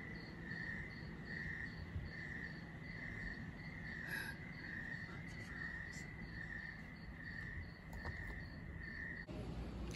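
Crickets chirping in a steady, even rhythm of about two chirps a second, cutting off suddenly near the end.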